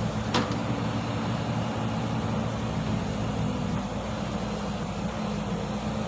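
Caterpillar tracked excavator's diesel engine running steadily as it digs, with one sharp clank about half a second in.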